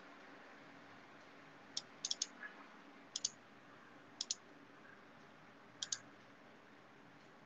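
Faint sharp clicks from computer controls, coming in quick pairs and triples about once a second, five groups in all.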